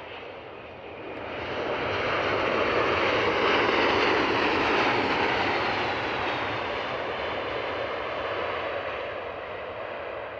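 Airbus A320-214 airliner's CFM56 jet engines rushing as it lands and rolls out along the runway. The noise swells about a second in, peaks a few seconds later as the jet passes, then slowly fades as it moves away.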